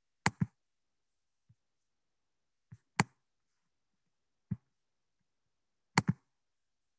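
A handful of short, sharp clicks: a close pair near the start, single clicks about three and four and a half seconds in, and another close pair near the end, with dead silence in between.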